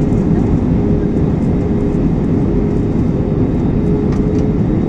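Cabin noise inside an Airbus A320-family jet airliner on approach: a loud, steady rumble of the engines and rushing air, with a steady hum running through it.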